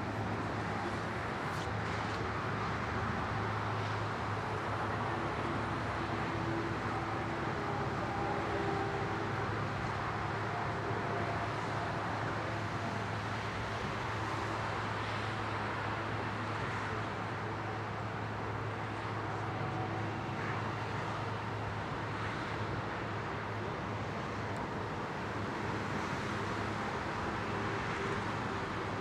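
Steady low engine hum and rumble of airport ground noise, with an aircraft tug towing an Airbus A330 on the taxiway, at an even level throughout.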